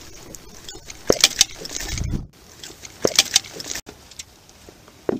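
A netted northern pike being lifted out of the water and swung into a small rowing boat: two short clusters of quick knocks and splashes about a second apart, a low thump, and one more sharp knock near the end.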